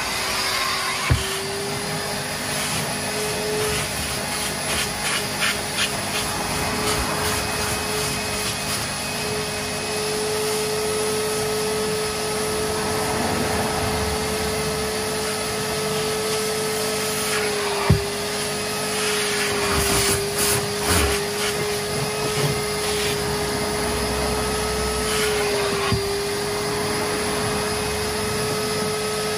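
Wet vac (carpet extractor) running steadily, sucking the washed car carpet until it comes up clean. Its motor tone dips briefly a couple of times, with scattered scraping and a sharp knock about halfway through.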